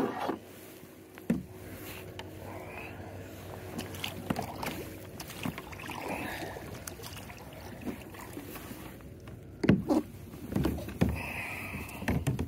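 Sounds of a fishing kayak on the water: scattered knocks against the hull, one near the start and a cluster about ten seconds in, over a low steady background.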